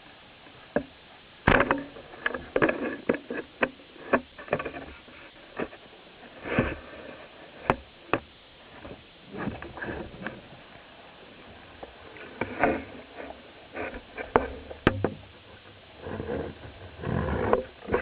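Underwater knocks and clicks from a freediver's gear and camera housing, irregular and some sharp, with a longer swell of bubbling water near the end.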